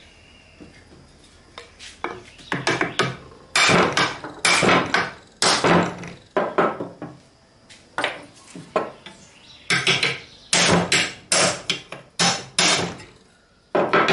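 Hand hammer striking the metal of an electric motor being knocked apart. The blows come in uneven runs of sharp strikes, starting about two seconds in, with short pauses between runs.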